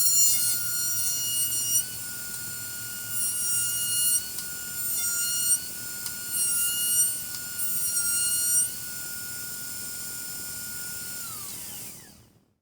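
Trim router in a router table running with a steady high-pitched whine, with several louder stretches of cutting. Switched off near the end, its pitch falls as it spins down to a stop.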